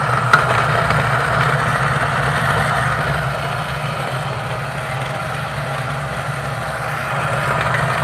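Rancilio Silvia espresso machine's vibratory pump running steadily, a low buzzing hum with water being pushed through. There is one light click shortly after it starts.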